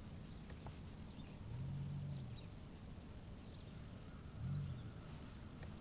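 Faint open-air ambience with a low steady rumble. A bird gives a quick series of six short high notes over the first second and a half. Two brief low hums follow, about two seconds and four and a half seconds in.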